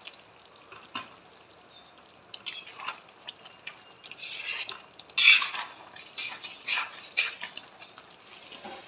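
Metal spoon stirring thick chicken curry in a kadhai: irregular scrapes and clinks against the pan with wet, sloppy gravy sounds, loudest about five seconds in. The curry is stirred so the cashew-almond paste doesn't stick to the bottom.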